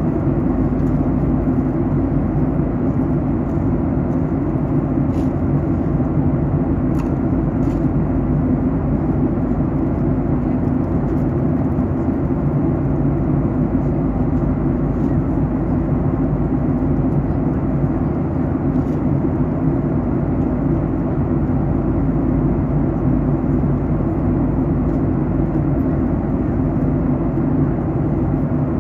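Steady cabin drone inside a Boeing 737 MAX 8 during descent: engine and airflow noise, heaviest in the low range, with faint light clicks now and then.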